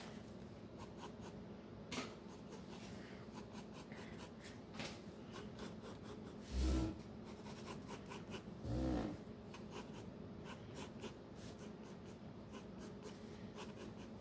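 Pencil scratching on sketchbook paper in many short strokes as lines are drawn. Two brief louder, low sounds break in, about six and nine seconds in.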